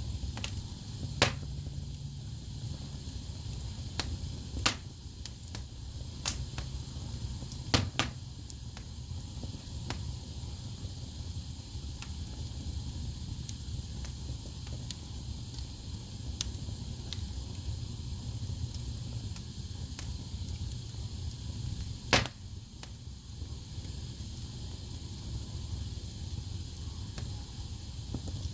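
Wood fire burning in a fireplace: a low steady rumble of flames with a handful of sharp crackles and pops from the burning logs, the loudest one late on.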